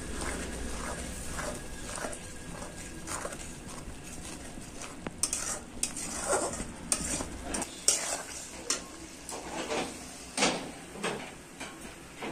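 Metal spoon stirring and scraping onion and ground-spice masala frying in an aluminium kadai, with a light sizzle underneath. The scrapes and clinks against the pan get sharper and louder from about five seconds in.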